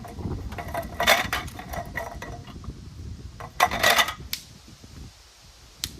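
Metal cookware and utensils clinking and clattering in two bursts, about a second in and again near four seconds, over a low rumble of wind on the microphone.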